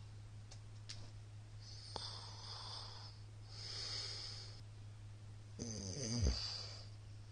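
A middle-aged man snoring in his sleep: two hissing breaths, then a louder rattling snore about six seconds in that sinks low in pitch.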